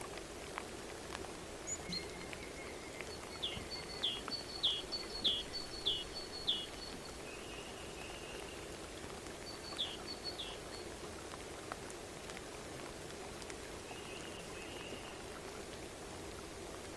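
Songbirds calling outdoors: a quick run of about six down-slurred notes a few seconds in and two more near the middle, with short trills between. Under them runs a steady background hiss with scattered faint ticks.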